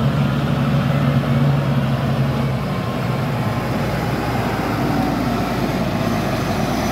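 XCMG GR135MAX motor grader's diesel engine running steadily as the grader drives slowly past; its tone shifts about two and a half seconds in.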